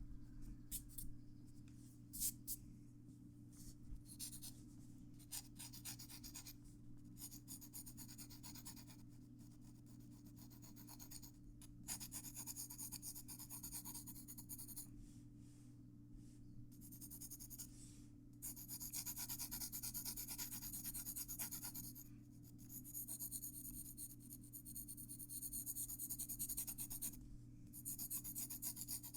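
Graphite pencil scratching on drawing paper, short separate strokes at first, then longer, denser back-and-forth shading strokes from about two-thirds of the way in.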